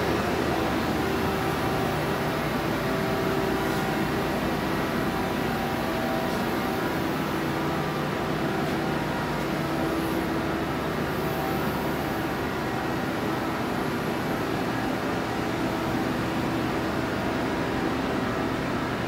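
Steady industrial machinery hum with several constant pitched tones, unchanging throughout.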